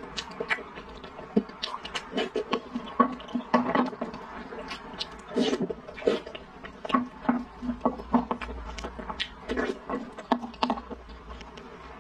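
Close-miked eating sounds: wet chewing, slurping and lip smacks as soft balls and purple rice soup are spooned in and chewed, a dense run of small irregular clicks and squelches.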